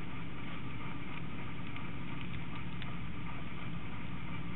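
Steady low hum and hiss of background noise, with a few faint light clicks from handling the pocket knife's slide-out carabiner.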